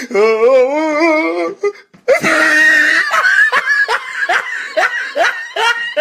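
A person laughing: a warbling laugh for about a second and a half, then after a short break a loud shriek that runs into a string of high, rising laugh calls, about three a second.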